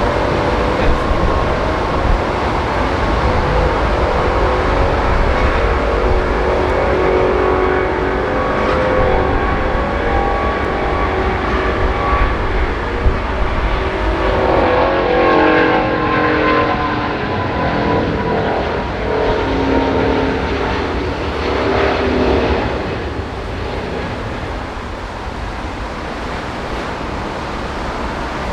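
Jet airliner engines passing by: a loud, steady rushing noise with whining tones that slide down in pitch midway, growing quieter over the last few seconds.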